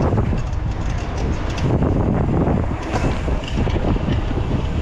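Wind buffeting the microphone with a steady low rumble of road noise while riding a bicycle along a street.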